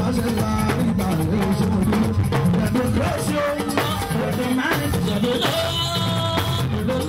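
Live party band music with drums and percussion, playing at a steady level with an even beat.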